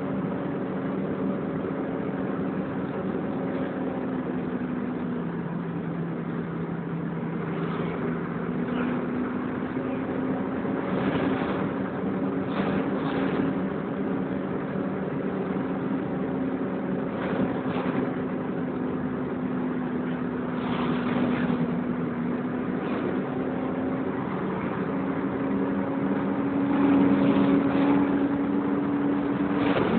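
Volvo B10BLE single-deck bus's diesel engine and drivetrain running under way, heard from inside the saloon, its note stepping down and up a few times with speed and gear changes, with brief rattles and knocks throughout and a little louder near the end.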